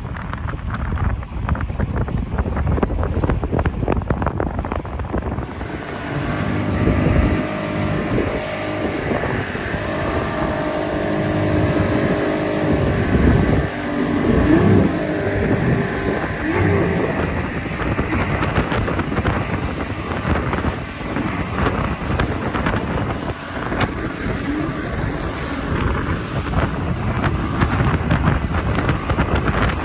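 Motorboat engine running with the boat under way at speed, its steady tones over a low rumble. About five seconds in, a bright rushing hiss of wind on the microphone and water racing past the hull joins it and stays.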